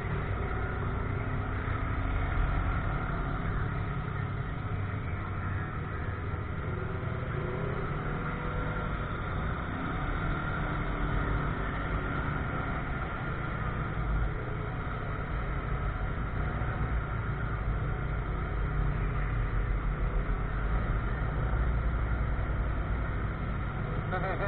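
Steady low rumble of a vehicle driving slowly, heard from on board.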